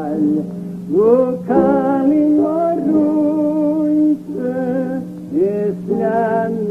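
Unaccompanied-style singing of a slow Scottish Gaelic song, held notes with vibrato and a short breath between phrases, over a steady low drone note that never stops.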